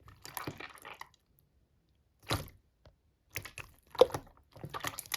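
Slime being squeezed and pressed by hand: short crackling, squishy pops in separate bursts, with brief silences between presses.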